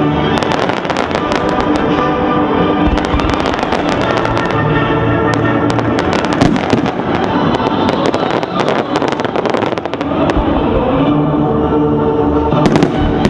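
Fireworks display going off over music: a dense run of bangs and crackles from about half a second in until about ten seconds, then a few more bangs near the end. Steady music plays underneath throughout.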